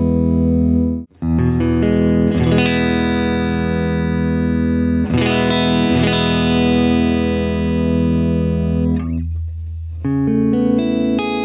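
Clean, dry electric guitar played through a neck-position DiMarzio DP156 Humbucker From Hell wired in parallel, in a Washburn N24 through a Fractal Audio AX8 clean preset. A held chord cuts off about a second in, then a series of chords are struck and left to ring.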